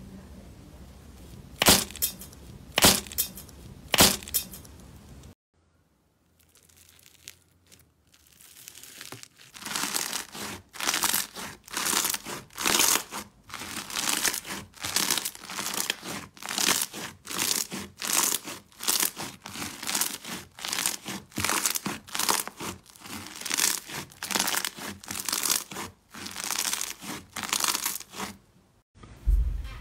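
Slime squeezed and kneaded by hand. Three sharp crackles come from a gold glitter-coated slime ball squeezed in one hand. After a few seconds of near silence, a lumpy lilac slime pressed and pulled with both hands gives a steady run of short squishing sounds, about two a second.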